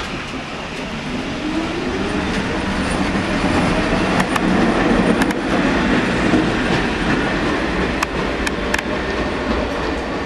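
Pullman Standard R46 subway train pulling out of the station and speeding up: a rising traction-motor whine over a heavy rumble, with sharp clicks as the wheels pass rail joints later on.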